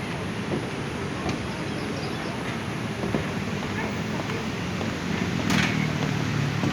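Indistinct voices of people talking over a steady outdoor background noise, with a short hiss about five and a half seconds in.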